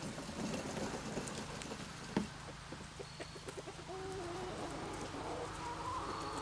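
Chickens clucking, with short held calls that come in from about four seconds in, over a light crackling rustle. A single sharp knock sounds about two seconds in.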